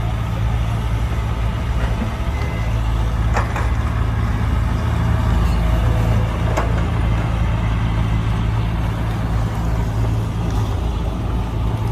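Heavy diesel engine of earthmoving machinery running steadily, with two short clanks about a third and about halfway through.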